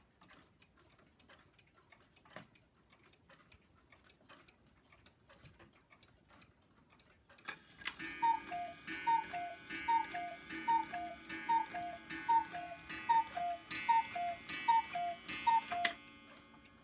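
Anton Schneider Heidi and Peter cuckoo clock ticking, then calling the hour. From about seven seconds in, its two-note cuckoo, a higher note followed by a lower one, sounds about once a second until near the end.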